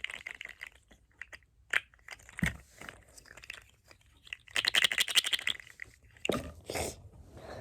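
Small plastic fidget toys being handled: scattered clicks and crunches, a dense run of rapid crackling clicks about halfway through, then two duller knocks near the end.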